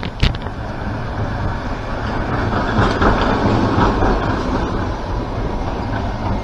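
A vehicle passing close by on the street: a steady rumble that swells to its loudest about three seconds in, then fades. A single sharp tap comes just after the start.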